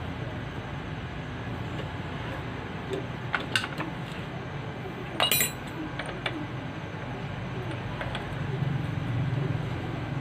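A few sharp metallic clinks of hand tools and small parts on a motorcycle engine, two about three and a half seconds in and a quick cluster just past five seconds, over a steady low background hum.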